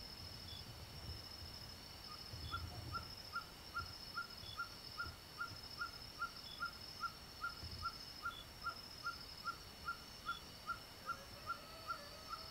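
Outdoor ambience of insects trilling steadily, with a fainter high chirp about every two seconds. From about two seconds in, an animal gives a long, even series of short hooting notes, about two and a half a second. Near the end a lower sliding call joins in.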